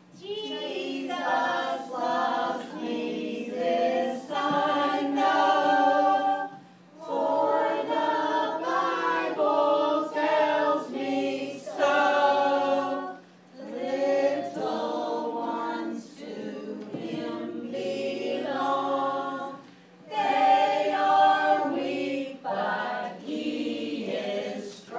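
Voices singing a song in phrases separated by short breaths, with little or no instrumental backing, over a faint steady low hum.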